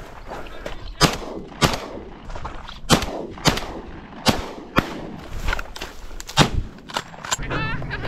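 Shotguns firing a rapid volley of about ten shots, uneven in loudness, as snipe flush from the marsh.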